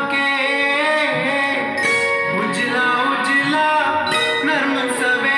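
Music with a singing voice, played back from a vinyl record on a vintage Rotel turntable.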